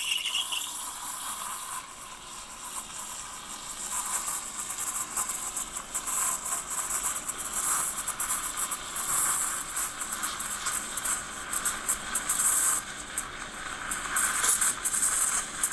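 Steam wand of a Profitec Pro 700 dual-boiler espresso machine frothing milk in a stainless steel pitcher: a steady hiss with rapid irregular ticks as the wand tip draws air into the milk to stretch it. A brief high whistle in the first half second.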